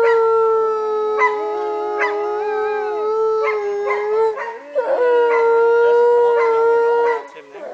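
Grey wolf howling: one long, level howl of about four seconds, then, after a short break, a second howl that starts about five seconds in and stops shortly before the end.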